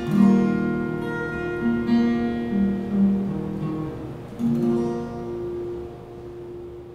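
Acoustic guitar being played: a few chords and notes struck about a second apart, with the last one, about four and a half seconds in, left to ring and fade away.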